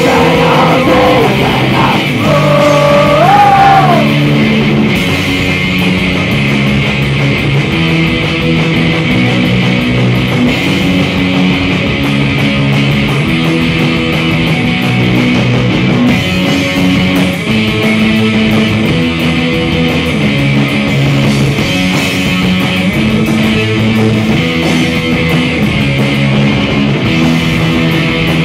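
Live rock band playing on stage: electric guitars, bass and a drum kit, loud and continuous, with the chords changing every second or so.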